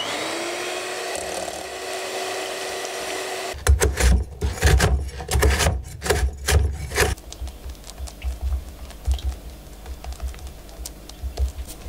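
Electric hand mixer whirring steadily as it whips cream, its pitch rising as it starts up. At about three and a half seconds it gives way to a large knife chopping cookies on a wooden board: a rapid series of loud knocks for about three and a half seconds. After that come faint scraping and light taps.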